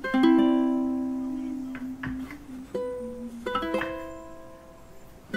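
Background music: a gentle melody of single plucked-string notes, each ringing and fading away.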